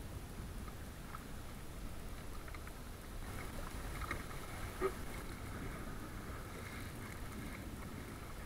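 Kayak on choppy sea water: water splashing and sloshing against the plastic hull with a steady low rumble, and paddle strokes near the end. A few light clicks and one sharper knock come about five seconds in.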